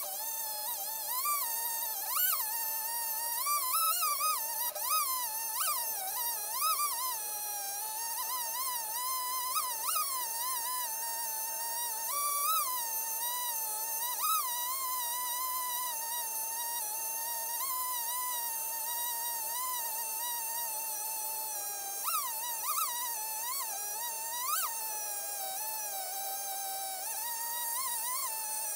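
Two-stroke chainsaw engine running at high revs under load in a chainsaw mill cut through a cedar stump, a steady high whine. Its pitch dips and jumps up briefly as the load on the chain changes, with a run of sharp revs near the end.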